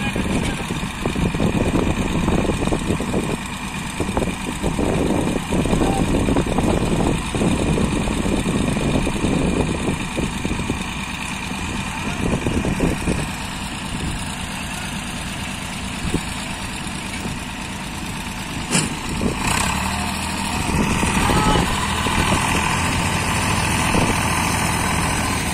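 Swaraj 855 tractor diesel engines working hard under heavy load as a sand-laden trolley bogged in soft sand is pulled free, the engine noise pulsing and churning at first and then settling into a steadier drone. A single sharp knock about three-quarters of the way through.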